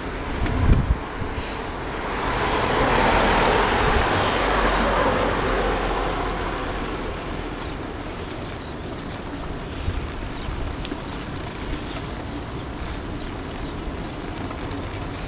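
A road vehicle passing on the road alongside, its noise swelling about two seconds in and fading away by about six seconds. Steady traffic noise and a low rumble continue after it.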